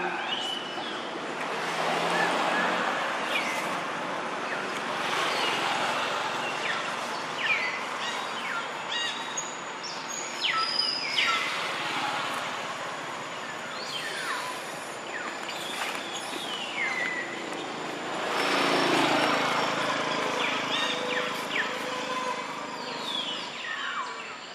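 Outdoor ambience: a rushing noise that swells and fades a few times, loudest near the end, with short high chirps scattered through it. A faint steady high whine runs from about halfway on.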